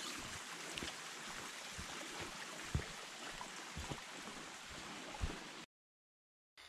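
Steady rushing noise, like running water, with low thuds about once a second; the sound cuts off abruptly near the end.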